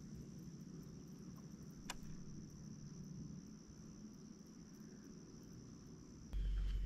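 Insects give one steady high-pitched buzz over a faint low hum, with a single click about two seconds in. Near the end a sudden loud low rumble cuts in.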